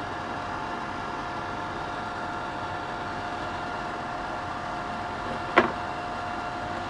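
Steady whirring hum of a fan or similar small blower, with a few faint steady whining tones in it, and one sharp click about five and a half seconds in.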